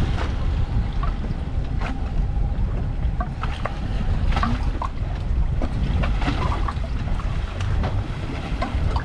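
Wind buffeting the microphone and water slapping against the hull of a drifting boat, with scattered light clicks and knocks from fishing tackle being handled.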